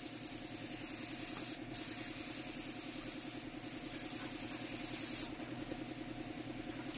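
Steady air hiss of a paint spray gun over an air compressor running with a fast, even pulse. The hiss thins briefly twice, and its highest part drops away about five seconds in.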